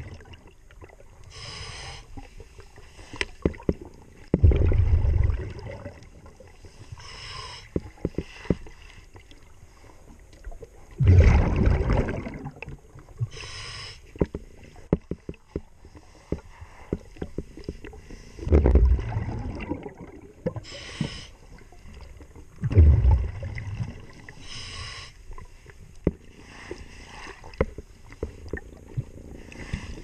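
A diver breathing through a regulator underwater: a hissing inhale, then a loud rumbling rush of exhaled bubbles, repeating every four to seven seconds with four bubble bursts in all. Small clicks and scrapes run between the breaths as a scrub pad works along the boat's hull.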